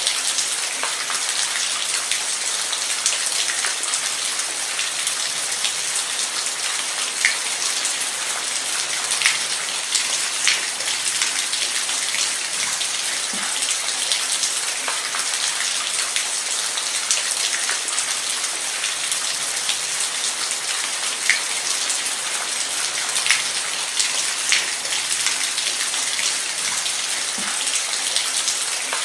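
Steady rain falling, an even hiss with single drops ticking sharply now and then.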